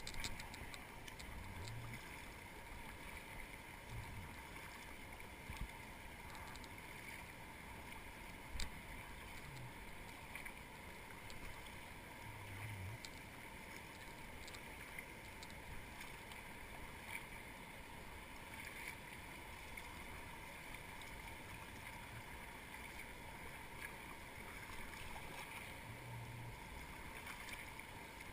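River water rushing steadily, with a few faint knocks.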